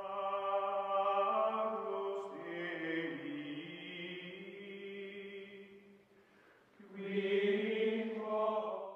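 Outro music of long held, chant-like vocal tones over a low sustained note, with one slow pitch change; it dies away about six seconds in, swells back a second later and cuts off suddenly at the end.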